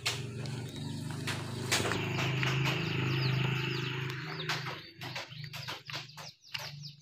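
Small birds chirping in short falling notes over a steady low hum. In the second half come quick crunching steps on dry grass and gravel.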